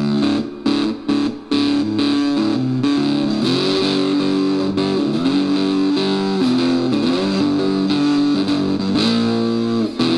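Electric cigar box guitar played through a small cigar box amplifier: a riff of quick notes, then held notes that glide up and down in pitch.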